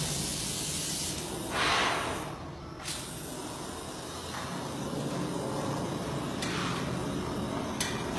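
Handheld gas flame torch hissing steadily as its flame is played over wooden nesting planks, with a louder surge of hiss about one and a half seconds in and a single sharp click near the end.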